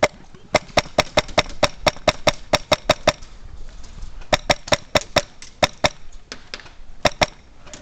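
Airsoft gun firing rapid single shots, about five a second: a string of roughly a dozen, a short pause, another string of about eight, then a couple more shots near the end.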